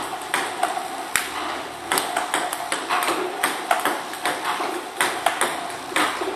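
Table tennis balls clicking rapidly as a DIY ball-throwing robot sends them over: light, sharp taps of the celluloid balls bouncing on the table and being struck with a bat, several a second and unevenly spaced.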